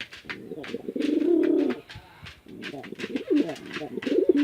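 Domestic pigeons cooing. One long coo comes about a second in, and shorter, broken coos follow near the end. Sharp clicking taps sound throughout.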